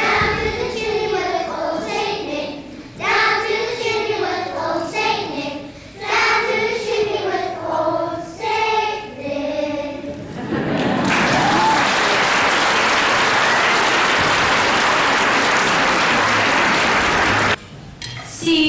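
Children's choir singing the last lines of a song, ending about 11 seconds in. Then an audience applauds steadily for about six seconds, cut off suddenly.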